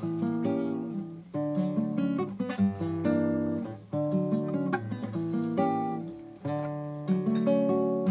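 Solo acoustic guitar playing the instrumental introduction to an Argentine tonada, chords strummed and notes plucked in short phrases that fade and start again every second or two.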